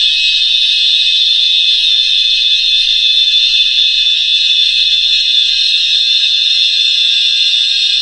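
Synthesized sci-fi 'alien turbine' sound effect: a loud, steady, shrill whine made of many close high tones with nothing low beneath it, holding unchanged.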